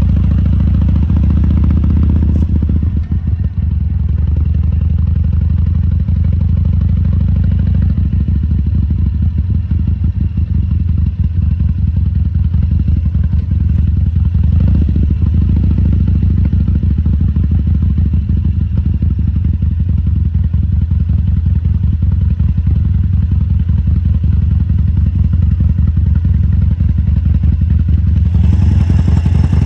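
Harley-Davidson Sportster XL1200C's air-cooled 1200 cc V-twin running steadily, its low pulsing exhaust note holding an even pitch with no revving. A hiss joins in near the end.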